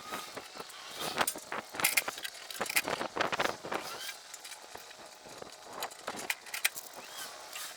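Irregular clattering, clinking and knocking of hard objects being handled and moved about, with some scraping. The knocks come thickest in the first few seconds and thin out after.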